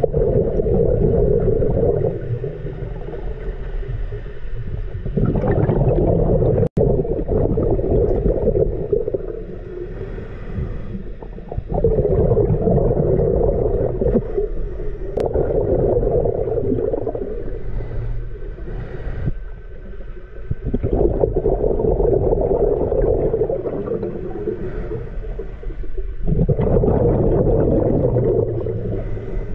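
Scuba diver breathing underwater through a regulator: exhaled bubbles gurgle out in bursts of two to four seconds, about six times, with quieter gaps between breaths.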